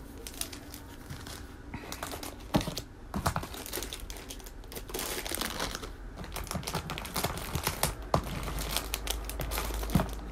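Plastic packets crinkling and small items clicking and rattling against clear plastic storage boxes as they are handled and sorted by hand.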